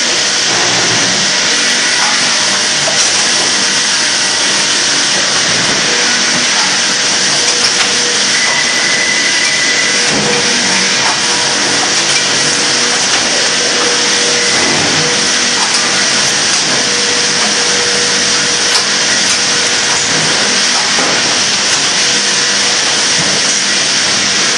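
Sawmill lumber-handling machinery (a random width stacker and its conveyors) running steadily: a constant loud, hissing mechanical noise with a faint hum and occasional light knocks of boards.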